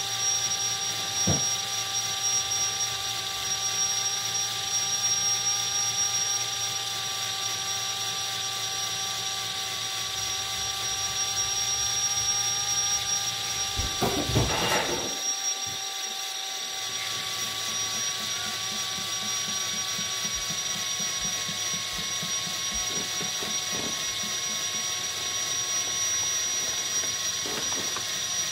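Small electric motor running with a steady whine, most likely the motor that turns the kinetic-painting surface under the brush. A short, noisy rumble comes about halfway through, followed by faint rapid ticking.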